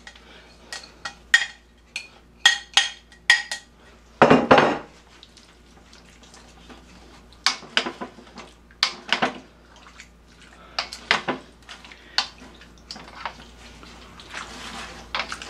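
Serving spoon knocking and scraping against a stainless steel pot as tomatoes are spooned in, a quick run of ringing taps and then a longer scrape about four seconds in. Later, scattered knocks and wet stirring sounds as the spoon moves through the stew.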